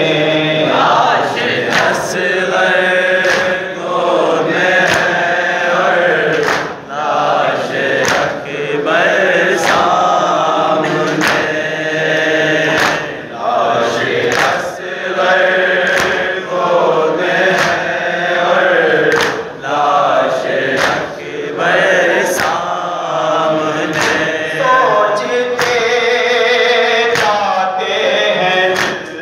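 Men chanting a noha, a Shia lament, in call and chorus into a microphone, with a steady beat of matam strikes, hands on chests, a little under once a second.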